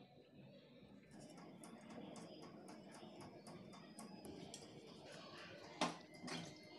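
A scouring pad scrubbing small brass pooja vessels over a stainless steel sink: a light, scratchy run of quick ticks, with two louder knocks near the end as the brass pieces knock against each other or the sink.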